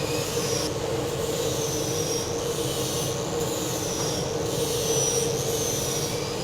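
Workshop machinery running steadily: a dense mechanical noise with a constant hum and a high, thin whine that wavers up and down in pitch.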